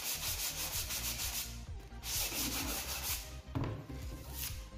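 Hand sanding the sawn edge of a laminated MDF board with 80-grit sandpaper on a block: rapid back-and-forth rasping strokes in three runs with short pauses between. The sanding smooths away the chipping left by the saw.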